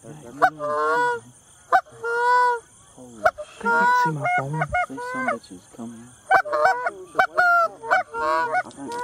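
Canada geese honking at close range in an irregular run of calls. Several drawn-out honks are mixed with quick short clucks, the chatter of a flock coming in to land.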